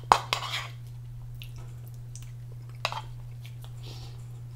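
A person chewing a mouthful of donair wrap, with a few soft wet mouth clicks near the start and another about three seconds in, over a steady low hum.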